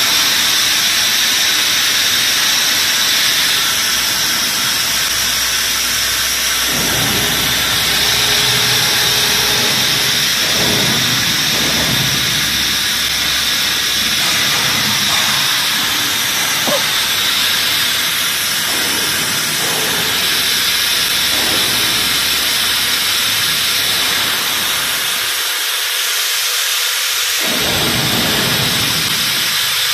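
Vacuum frying machine running with a loud, steady hiss. Fainter low sounds come and go underneath through the middle and again near the end.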